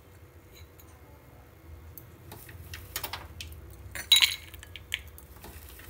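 Kitchen bowls and utensils clinking and knocking: a few scattered light clinks from about two seconds in, the loudest just after four seconds.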